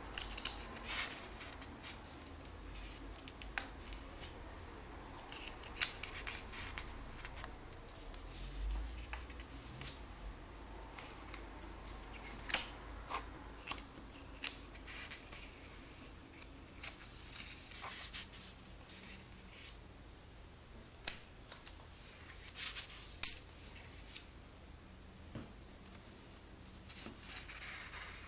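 Handling sounds of a comic book and its packaging being unboxed: irregular crinkling, rustling and scraping with many sharp clicks, a few of them louder.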